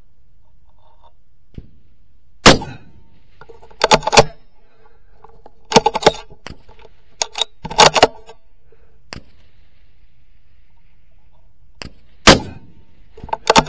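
Bolt-action rifle fired twice, about ten seconds apart, each shot very loud and sharp. In between come several short runs of sharp metallic clacks with a ringing edge, typical of the bolt being worked to eject the case and chamber the next round.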